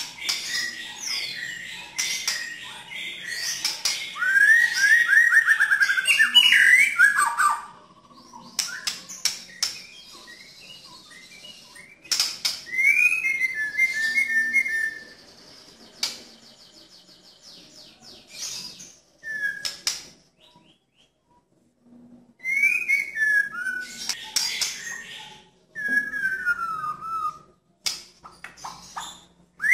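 White-rumped shama singing in loud phrases: clear falling whistles and quick trills mixed with rough, rasping notes fired in rapid bursts, with short pauses between phrases.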